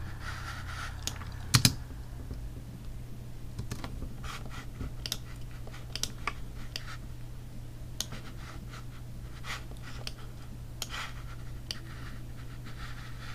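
Irregular computer keyboard and mouse clicks over a steady low hum, with one louder double click about a second and a half in.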